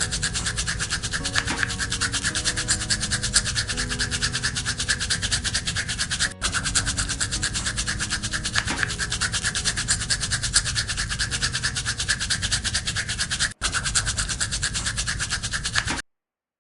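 A small brush scrubbing a muddy toy car in rapid, steady strokes, over quiet background music. The sound drops out twice for an instant and cuts off near the end.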